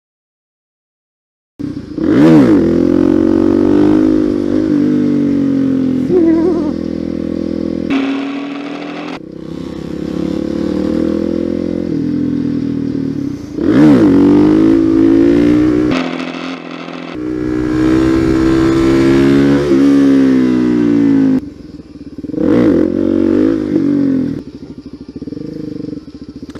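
Supermoto motorcycle engine cutting in abruptly after a second and a half of silence, then revving up and dropping back repeatedly as the bike is ridden through the gears, with a few sudden cuts.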